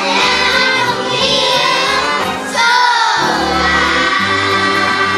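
A group of children singing together over a music backing track; the bass of the accompaniment drops out briefly about three seconds in.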